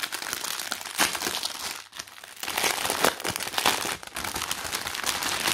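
Clear plastic packaging crinkling as it is handled and opened to get at the bags of diamond painting drills, in irregular crackles with a short lull about two seconds in.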